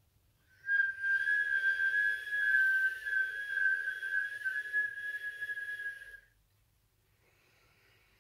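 A woman whistling a single steady note through pursed lips as she draws a long breath in, the whistling breath of a Sitali-style pranayama. The whistle holds nearly one pitch for about five and a half seconds with a breathy hiss around it, then stops, leaving faint breathing.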